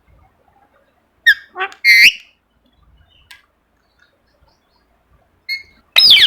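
Ringneck parrot chirping in short, sharp, high calls: a quick run of three or four a little over a second in, then two more near the end.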